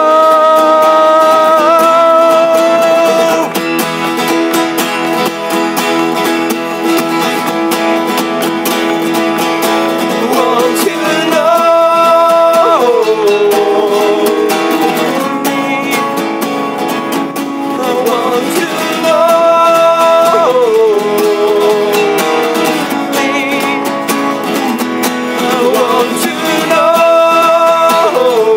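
Two acoustic guitars played together under a man's singing voice. The voice holds long notes about every eight seconds, each sliding down in pitch at its end.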